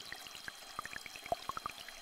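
Small stream flowing with rain drops: a haze of running water dotted with many quick, irregular plinks of drops, over two faint steady high tones.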